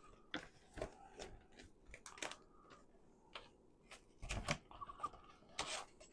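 Irregular clicks, taps and rustles of plastic parts being handled and fitted together while assembling a robot mower's rear sweeper bagger attachment.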